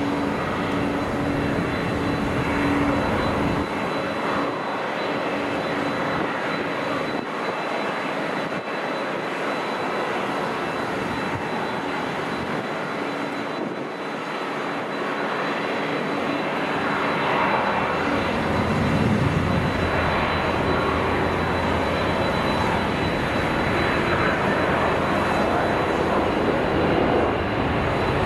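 Jet airliner engines on a landing approach: a continuous jet rush that swells louder in the second half, with a faint steady high whine.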